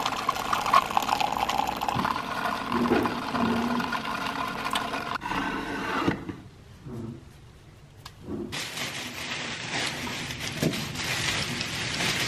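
Single-serve pod coffee maker brewing hot chocolate, its pump running as a thin stream pours into a ceramic mug; the flow stops about halfway through. After a short lull, a steady hiss follows.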